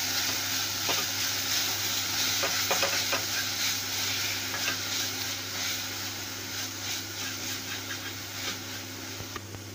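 Chopped green onions and spices sizzling in ghee in a nonstick kadai while a wooden spatula stirs and scrapes them around the pan. The sizzle slowly dies down as the pan cools with the gas turned off.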